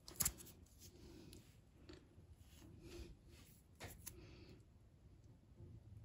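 Faint handling sounds of a rear brake caliper being turned over in gloved hands, with a few light clicks.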